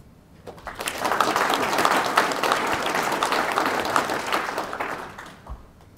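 Audience applauding a talk: the clapping starts about half a second in, swells quickly, holds, and dies away after about five seconds.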